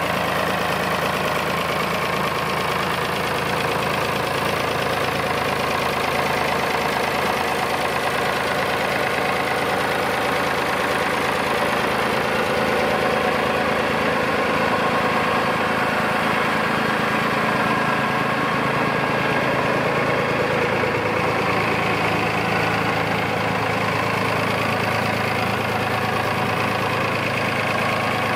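1969 David Brown 780 Selectamatic tractor's three-cylinder diesel engine idling steadily.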